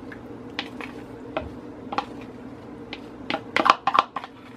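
Wooden spoon scraping and knocking against the rim of a bowl as thick ketchup is scraped out, with scattered clicks and a louder run of knocks about three and a half seconds in. A steady low hum runs underneath.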